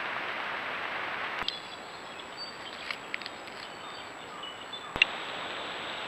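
Trail-camera night audio: a steady hiss, broken by a click about a second and a half in and a louder click about five seconds in where the recordings change. Between the clicks come a few faint, short, high chirps.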